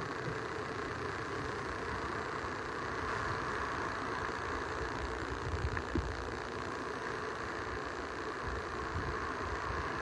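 Steady, muffled rumble and hiss from a rain-soaked microphone picking up wind and surf at the shoreline, with a brief bump about six seconds in.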